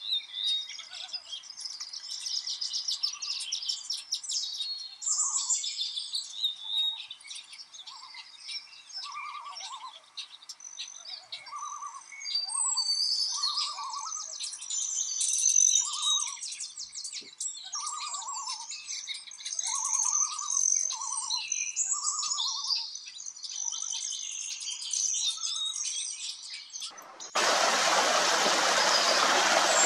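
Several birds singing together: busy high chirps and trills over a lower short note repeated about once a second. About 27 seconds in it cuts abruptly to a small stream splashing over rocks, a steady, louder rush.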